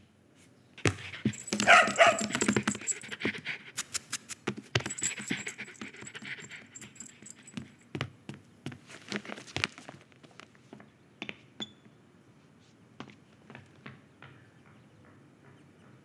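A dog's short whine about two seconds in, followed by a run of light ticks and taps that come quickly at first and thin out after about ten seconds.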